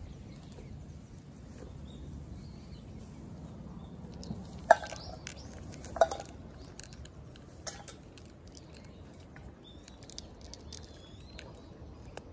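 Cat crunching dry kibble from a plastic dish: a run of small crunchy clicks, with two sharper knocks about a second apart near the middle.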